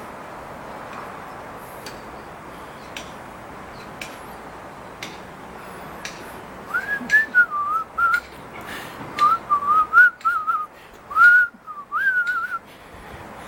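A person whistling short, warbling phrases in three bursts, starting about halfway through, over steady background noise.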